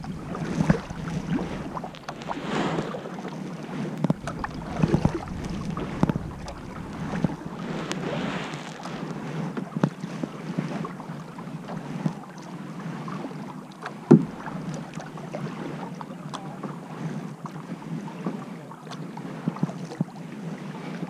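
Kayak paddle strokes on calm water: the blades dip and splash in alternately about every two seconds, with water dripping off them and some wind on the microphone. One sharp knock about fourteen seconds in.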